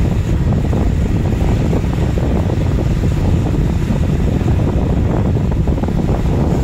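Wind rushing over the microphone of a moving motorcycle, with the motorcycle's engine running underneath, at an even, unbroken level.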